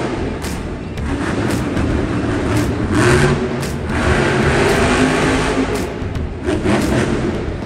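Monster truck's supercharged V8 engine revving hard as the truck drives and turns on the arena's dirt floor, the engine note rising and falling.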